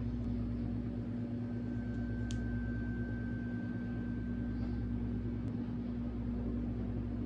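Steady low electrical hum with a constant low tone, and a faint thin higher tone that comes in about two seconds in and fades out around five seconds; a couple of tiny clicks.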